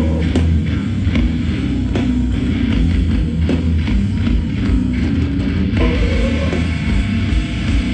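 Hardcore band playing live: loud distorted electric guitars and bass over a pounding drum kit, with no vocals picked up in this stretch.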